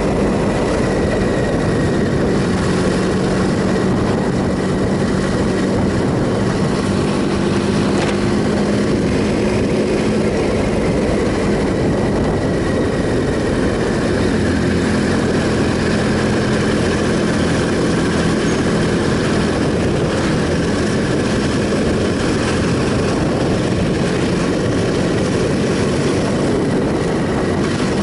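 Triumph Sprint ST 1050's three-cylinder engine running steadily while riding, its note holding near one pitch and shifting slightly midway, under a constant rush of wind and road noise.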